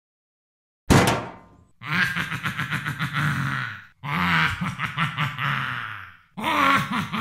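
A sudden thunk about a second in, then a deep voice in three long, pulsing, wordless vocal outbursts of about two seconds each.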